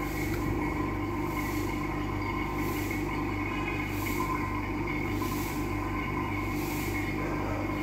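Vacuum forming machine running: a steady mechanical hum, with a soft hiss swelling and fading about every second and a bit.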